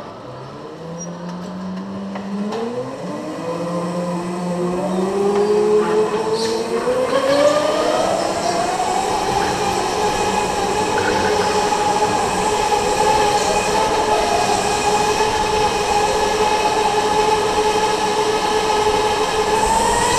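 Electric go-kart motors whining as the karts pull away from the grid: several rising whines overlap in the first few seconds, then the onboard kart's motor settles into a steady high whine at speed.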